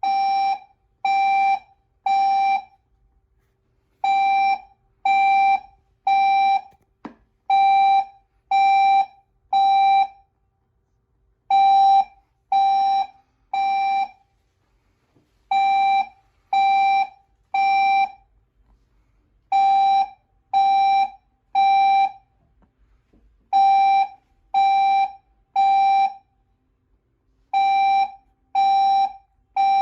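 Building fire alarm sounding in the temporal-three evacuation pattern: three short, loud electronic horn tones, then a pause, repeating steadily. It was set off by cooking.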